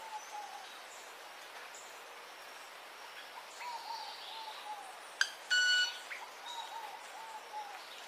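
Male manakin sounding off: a sharp snap about five seconds in, followed at once by a half-second buzzing ring with a clear pitch. Around it, another bird repeats runs of short falling whistled notes over a steady forest hiss.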